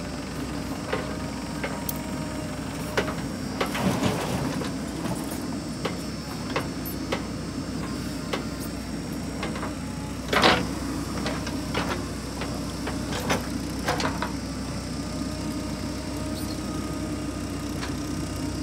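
JCB 3DX backhoe loader's diesel engine running steadily as it digs and loads soil, with repeated metal clanks and knocks from the bucket and arm. About ten seconds in a louder crash as a bucketful of soil drops into the tractor trolley.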